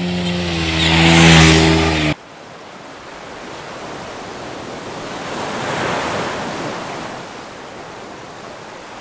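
Small waves washing over a rocky shoreline, a soft surf that swells to a peak about halfway through and then eases off. For the first two seconds music plays with a rising rush of noise, then it cuts off abruptly.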